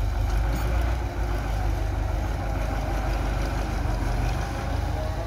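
Farm tractor's diesel engine running steadily with a low hum as the tractor reverses, dragging its rear blade through loose soil.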